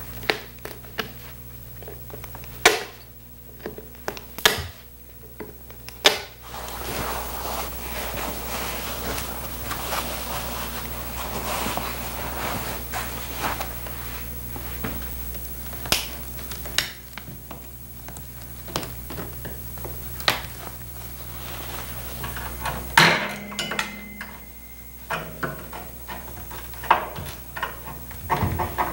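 Hand tools stripping an old upholstered chair frame: metal prying at staples and spring clips, giving scattered sharp clicks and knocks. A steady low hum runs through much of the middle stretch.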